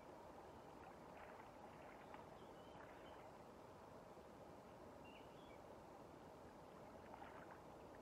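Near silence: faint steady river ambience, with a few soft splashes from the fish in the landing net and a couple of faint high bird chirps.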